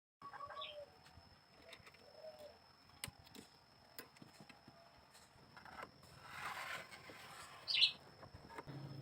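A bird calling with a few short chirps, the loudest near the end, among scattered light clicks and a brief rustle about two-thirds of the way through. A faint steady high tone runs underneath.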